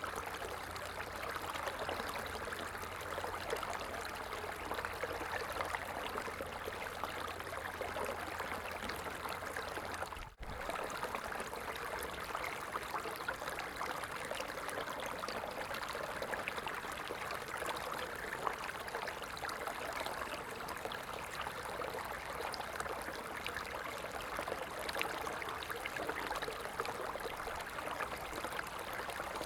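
A stream's water running and trickling steadily, with fine splashy detail. It cuts out for a split second about ten seconds in.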